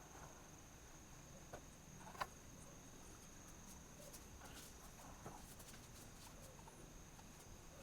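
Near silence: faint background with a thin steady high whine and a few soft clicks, the sharpest about two seconds in.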